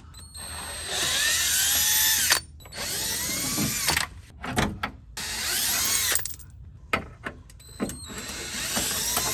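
Cordless drill driving an 8 mm socket, backing out the screws of a car's underbody panel in several short runs. Its motor whine rises and falls with each run.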